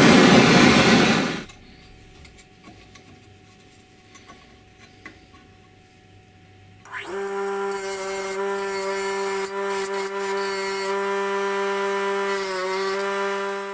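A loud hiss for the first second or so, then a few faint metal clicks. About seven seconds in, a bench grinder's motor spins up with a brief rising whine and runs with a steady hum while its wire wheel brushes paint off a motor end cover, the scrubbing hiss coming and going as the cover is pressed on.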